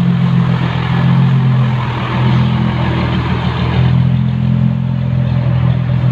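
Large diesel engine of a heavy vehicle running close by at a steady pitch: a low drone with a broad rushing noise over it.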